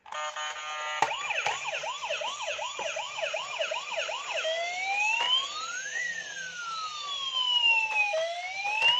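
Battery-powered toy ambulance's electronic siren. A steady electronic tone for about a second gives way to a fast warbling yelp of about two and a half cycles a second. About halfway through it changes to a slow wail that rises and falls.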